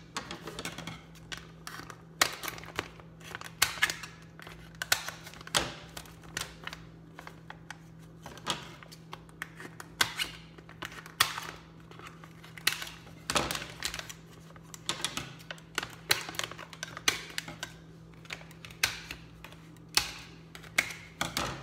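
Scissors cutting and crinkling a disposable aluminium foil pan: a string of irregular sharp clicks and crackles. A steady low hum runs underneath.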